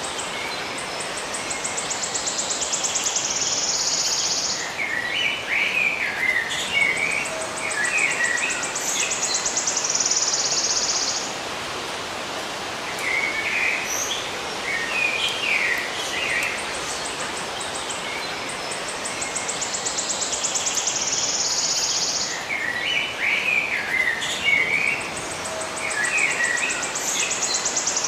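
Birds singing over a steady hiss: a fast, high trill that builds over a few seconds, taking turns with short clusters of chirps, the pattern repeating about every seven seconds.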